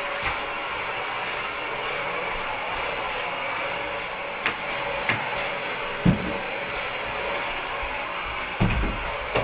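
Vacuum cleaner running steadily as it is pushed across the floor. A few knocks and thumps are heard over it, the loudest about six seconds in and near the end.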